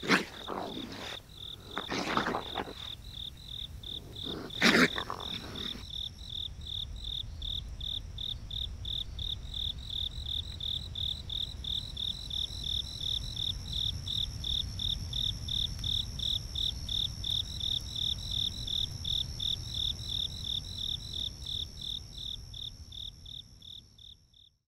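Night insects chirping in a steady, evenly pulsed high trill that fades out near the end. In the first five seconds, a few sudden loud harsh noises from raccoons at the food break over it.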